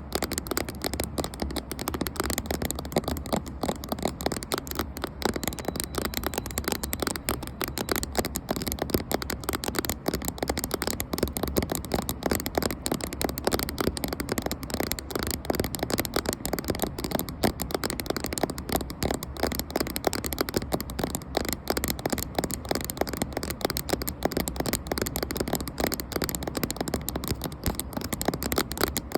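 Fingers tapping rapidly on a camera close to its microphone: a dense, steady run of many small taps a second without a break.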